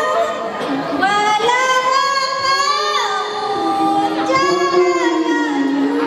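Group of young women singing a nasyid together through microphones, with long held notes and sliding, ornamented melody lines.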